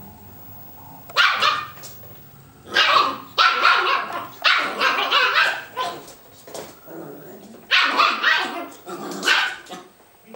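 Italian Greyhound puppy barking in play while chasing a ball, in about five short bursts, the first about a second in.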